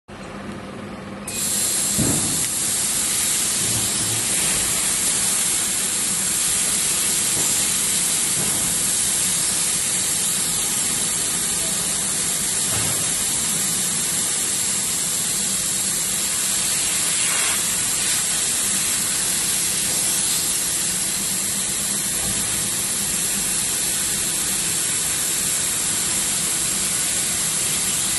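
1325 double-head hybrid CO2 laser cutting machine running a cut, a steady hiss of air that comes in about a second in and holds evenly, over a faint low hum.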